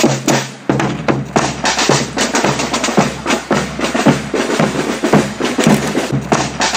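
Marching drums, snare and bass drum, beating a steady parade march rhythm.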